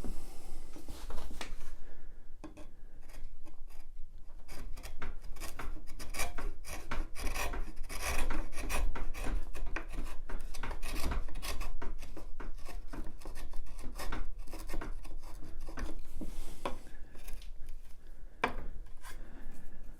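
Sharp bench chisel paring pallet wood across the grain by hand: a long run of short scraping, shaving cuts in quick succession, with a few sharper knocks near the end.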